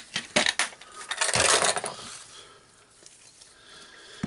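Small metal jigsaw parts clicking and clinking as they are handled: a few sharp clicks, then a short rattling scrape about a second in.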